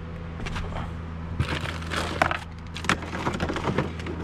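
Plastic and fabric items clicking, knocking and rustling as they are handled and lifted out of a pickup's glove box, over a steady low hum.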